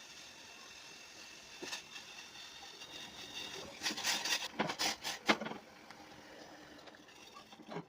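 Stovetop cooking: a steady low sizzle, with a burst of scraping and knocking from a utensil stirring in the pan about four to five and a half seconds in.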